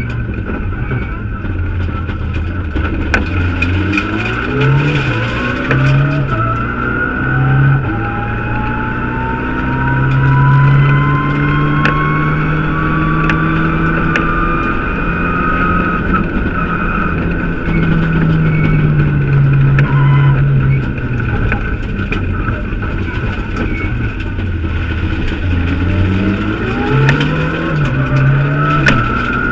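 In-car sound of a Mitsubishi Lancer Evo X rally car at speed: its turbocharged four-cylinder engine note repeatedly steps up and down with gear changes and throttle. A whine climbs slowly in pitch as the car gathers speed, twice, with scattered sharp ticks over the top.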